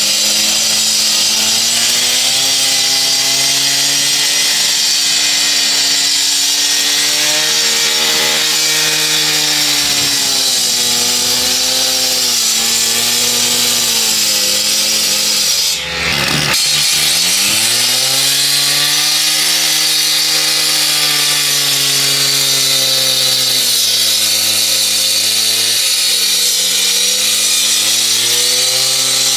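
Husqvarna K770 two-stroke gas power cutter running at high speed with its diamond blade cutting concrete, the engine note sagging and recovering as the blade is pushed into the cut over a steady grinding hiss. About halfway through the sound briefly dips and the engine pitch drops, then climbs back up.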